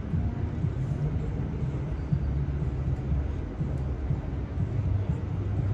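Outdoor street ambience: a steady, fluttering low rumble with a hiss of background noise and no distinct events.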